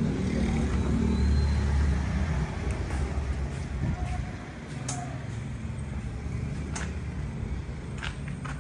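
A motor vehicle engine running with a steady low hum, loudest for the first two seconds or so and then settling lower. A few light clicks and knocks come through it.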